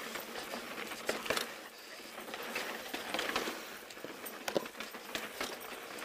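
Pivot Switchblade mountain bike rolling fast over a dirt and rock trail: steady tyre noise with scattered clicks and small knocks. The bike itself runs quiet, with no creaks or groans.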